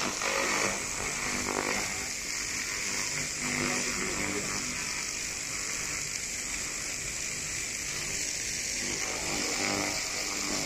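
A 3000 W handheld laser cleaning gun scanning across steel, giving a steady, high-pitched hissing buzz as it ablates the surface.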